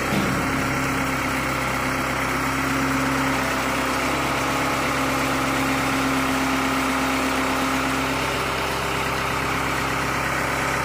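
Heavy water truck's engine idling steadily.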